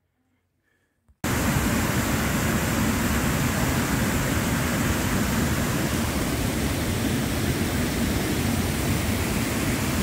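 Near silence for about a second, then the steady rush of a fast stream cascading over rocks cuts in abruptly and runs on at an even level.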